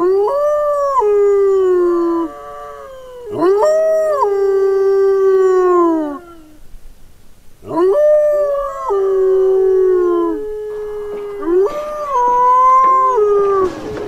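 Wolf howls: four long howls, each starting on a higher note, dropping to a long held lower note and sliding down at the end.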